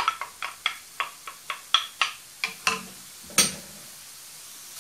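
Wooden spoon knocking and scraping against a frying pan while stirring vegetables, about a dozen sharp, irregular knocks, roughly four a second. The knocks stop about three and a half seconds in, leaving a steady faint sizzle of onion, squash and olives frying in butter.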